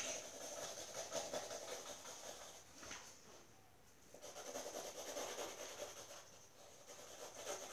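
Felt-tip markers rubbing across paper as pictures are drawn, faint, with a short lull about three seconds in.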